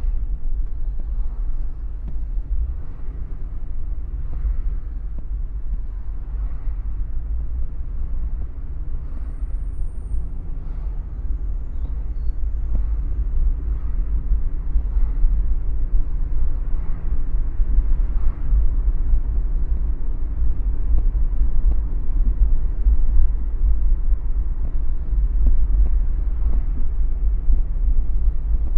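A car driving along city roads: a steady, deep road and engine rumble.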